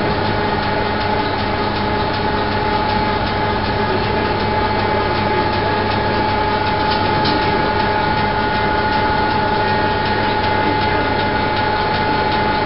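Steady drone of an idling diesel train engine, holding several constant tones at an unchanging level.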